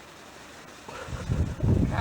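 Wind buffeting the camcorder microphone: a faint steady hiss, then loud, uneven low rumbling gusts from about a second in.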